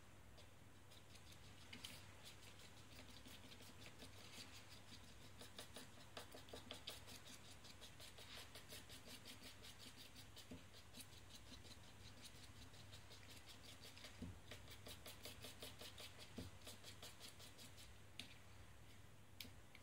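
Faint, quick scraping and tapping of a thin metal rod around a small plastic cup, about five strokes a second, as two-part silicone rubber is stirred. It comes in two long runs, with a pause in the middle.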